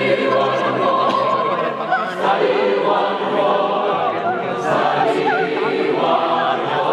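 A choir singing in harmony, many voices holding long notes together.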